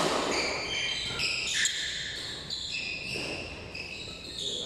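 Court shoes squeaking on a badminton court floor: many short, high squeaks overlapping one another, with a couple of sharp racket hits on a shuttlecock.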